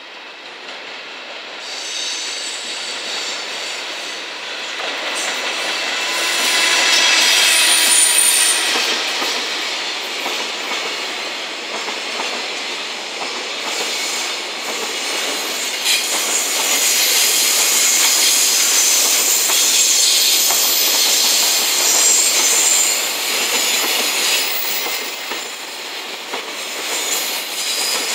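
Container freight train hauled by an EF210 electric locomotive passing at close range, its noise swelling over the first several seconds as the locomotive draws near. The long string of container flatcars follows, steel wheels rolling and clattering on the rails, with high-pitched wheel squeal at times on the curve.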